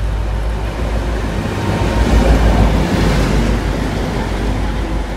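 Diesel locomotive passing through a station at speed: engine rumble and wheels on rails, rising to a peak two to three seconds in as it goes by close, then easing off.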